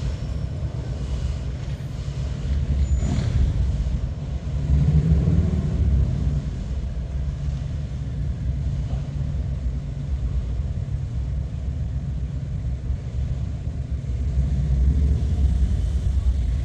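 Steady low rumble of a freight train's auto rack cars rolling away down the track, swelling slightly a few seconds in and again near the end.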